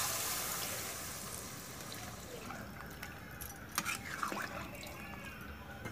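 Water poured from a steel vessel into a hot iron kadhai of chicken and potato curry. It sets off a hiss that fades over the first couple of seconds into a quiet simmer, with a few light clicks past the middle.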